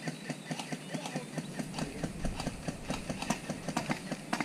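Quick, irregular footsteps, several a second, of a player moving on foot across the ground.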